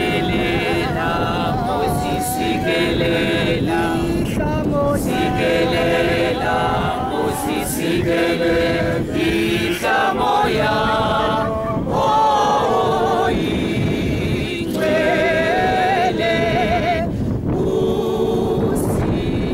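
A crowd singing together without instruments: many voices holding parallel notes at several pitches, in phrases of a few seconds with brief breaks between them.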